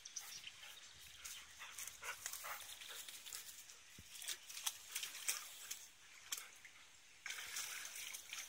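A dog nosing into shallow ditch water: faint, irregular little splashes and rustles.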